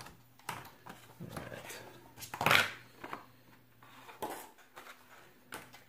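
Clear plastic blister pack being pulled off its cardboard backing and handled: a series of crackles and scrapes, the loudest sharp crackle about two and a half seconds in.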